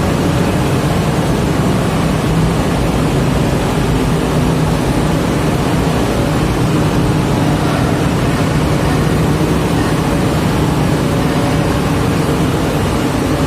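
Large diesel engine running steadily at an even speed, a loud low hum with no change in pitch.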